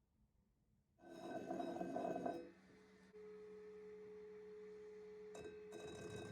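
Electric polishing motor switching on about a second in, loud at first, then running on with a steady hum and whine. A click near the end, after which the running noise grows louder again.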